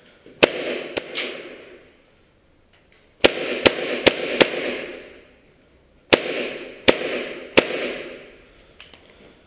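Airsoft gun shots fired singly, about nine in three groups (two, then four, then three), each group followed by a long echo off bare concrete walls.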